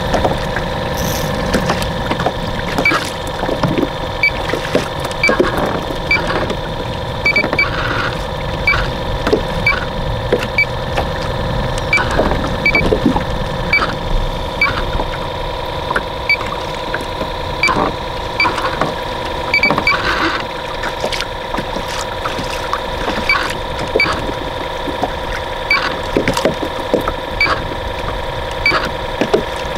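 A boat's motor running steadily with a constant whine, and faint scattered ticks and knocks over it.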